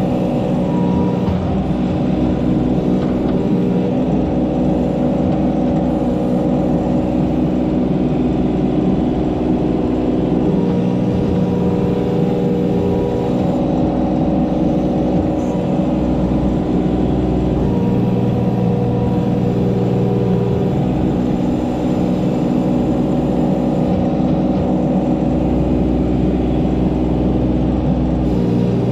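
Mini excavator's diesel engine running steadily close under the operator's seat, its note and load shifting every few seconds as the hydraulic controls are worked.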